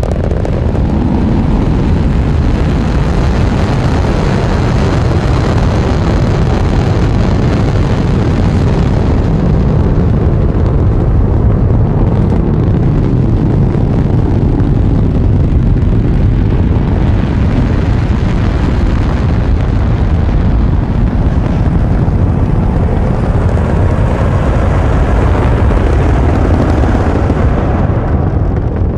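Saturn V rocket at liftoff: the loud, steady noise of its five first-stage F-1 engines, dropping away just before the end.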